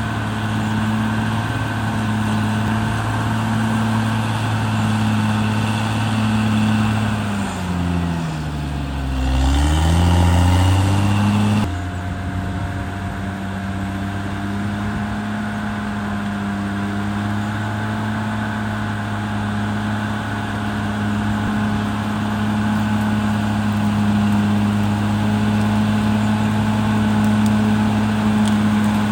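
CAT D6R XL bulldozer's diesel engine running steadily under work. About eight seconds in, its speed drops and then recovers, growing louder, as the machine takes a load. Near twelve seconds the sound changes abruptly, then settles back into a steady run.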